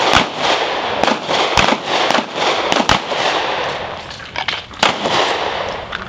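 Pistol shots, about ten of them, irregularly spaced roughly half a second to a second apart; the shooting tapers off near the end.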